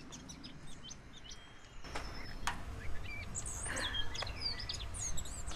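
Small birds chirping and twittering, many short high calls over a low outdoor rumble, with two light knocks about two seconds in.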